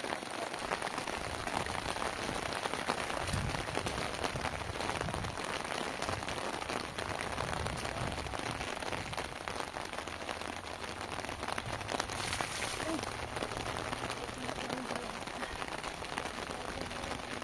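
Steady heavy rain falling, a dense even patter.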